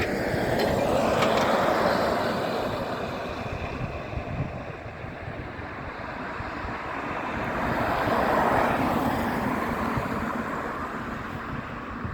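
Jet airliner engine noise, swelling twice, mixed with wind on the microphone.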